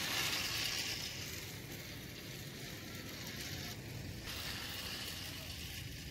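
Rail King toy train running along its plastic track past the camera: a steady whirring hiss from its motor and wheels, loudest at the start and easing off as it moves away.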